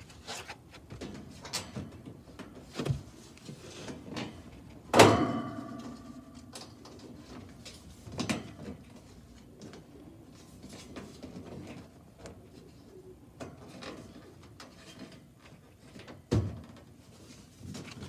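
Sheet-metal gas furnace access panel being handled: scattered knocks and scrapes, with one loud metallic clang that rings briefly about five seconds in and further sharp knocks near eight and sixteen seconds.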